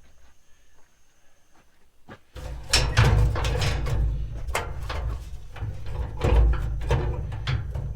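Quiet for about two seconds, then a continuous irregular clatter of knocks and rattles from the metal parts of a gas grill being handled and pulled at, over a low rumble.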